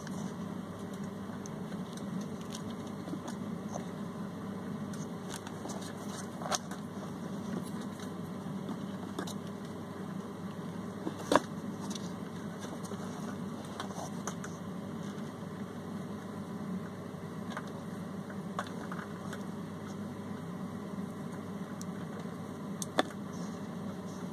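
A steady low hum, with a few sharp clicks from hands and metal tweezers handling compost in a plastic tub. The loudest click comes about halfway through.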